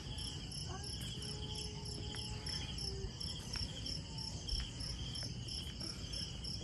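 Insects chirping in a steady, evenly pulsing high chorus, over a low background rumble.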